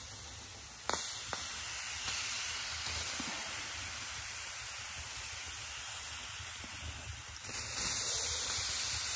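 Mushroom caps sizzling on a hot wood-stove top: a steady hiss that begins after a sharp knock about a second in and grows louder near the end.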